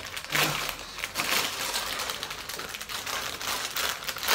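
Plastic snack packets being handled and opened by hand, with a quick, uneven run of crinkles and rustles.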